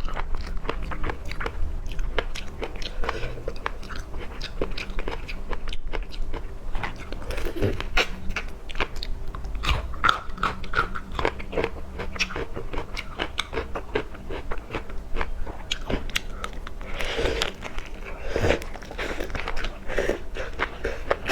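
Close-miked mouth sounds of a person biting and chewing seafood, a dense run of irregular wet clicks and bites.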